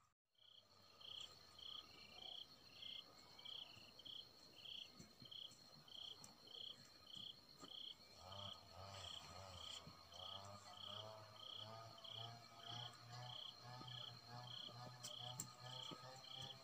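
Faint dusk chorus of insects: a steady high trill with a chirp repeating about twice a second. About halfway through, lower rhythmic calls join in.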